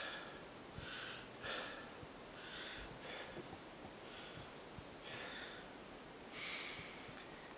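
A man breathing heavily and unevenly, one hissing breath about every second, faint: the shaken breathing of someone just woken from a nightmare.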